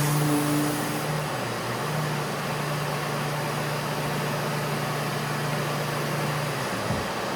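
Surfprep electric sander working a cabinet door, with a Festool dust extractor pulling air through the same hose. A steady motor hum sits over an even rush of air; the hum drops out near the end while the rush goes on.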